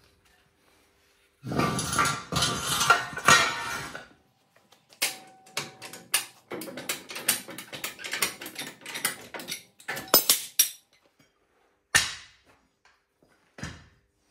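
A loud clatter, then a tall high-lift ratchet jack being worked down under a truck's chassis in a long series of metallic clicks and clanks, letting the new front coil spring take the vehicle's weight. A single sharp knock about two seconds later.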